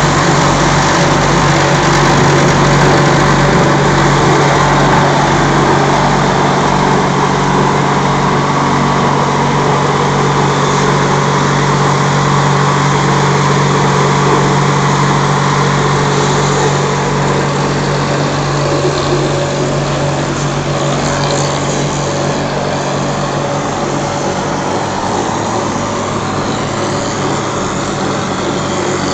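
JP60 mortar plastering machine running: a loud, steady mechanical hum from its motors and the vibrator-driven screen, with a constant low tone and an even hiss above it, easing off a little in the second half.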